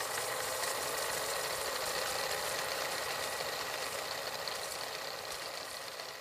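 Old film projector sound effect: a steady whirring hiss with a mechanical rattle, starting abruptly and fading slowly toward the end.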